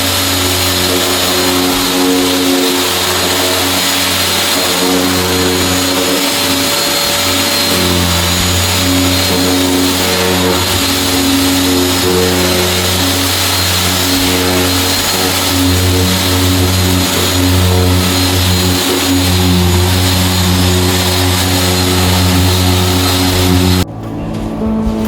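Floor sanding machine running under load: a loud, steady motor drone with a hiss of abrasive on wood. It cuts off abruptly near the end.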